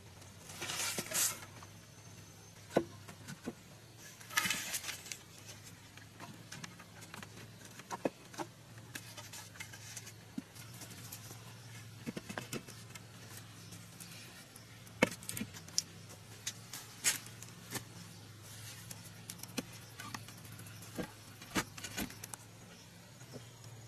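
Scattered knocks and clicks of hollow bamboo sections being picked up, handled and set down on a split-bamboo platform. There are two short rustling scrapes near the start.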